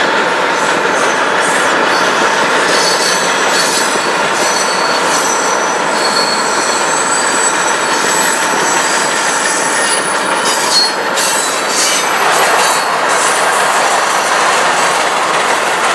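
Freight train of empty flatcars rolling past, its steel wheels squealing on the rails in several thin, high tones over steady rolling noise; the squeal dies away about three seconds before the end.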